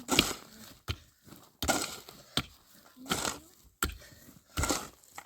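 A run of sharp chopping strokes, about one a second and unevenly spaced, each a hard knock with a short rough crunch after some of them.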